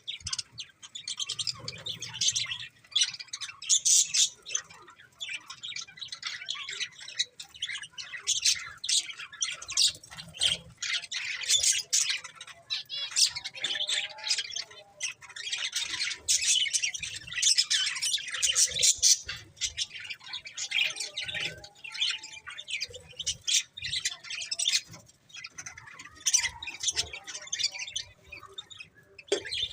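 Budgerigars chirping and chattering continually, a busy stream of short, high chirps and squawks.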